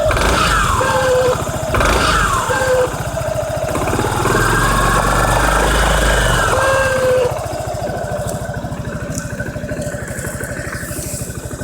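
Honda Forza (MF08) scooter engine blipped twice with the throttle, then held at higher revs for about three seconds before dropping back to a pulsing idle about seven seconds in. The owner hears a knock from the CVT variator at idle that goes away at higher revs.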